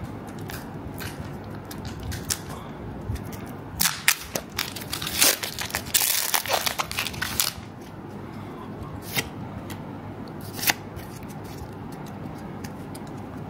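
Foil wrapper of a Pokémon trading card booster pack being torn open and crinkled by hand: a run of crackling tears starting about four seconds in and lasting a few seconds, then a couple of single sharp crinkles.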